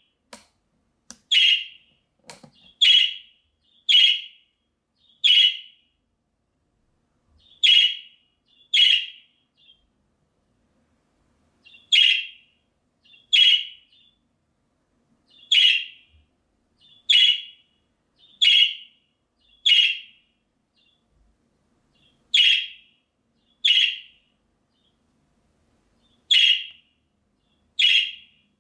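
Budgerigar giving short, loud, repeated contact calls, about one every second or so, with a few brief pauses between runs. These are the calling-type calls that draw the attention of other budgies.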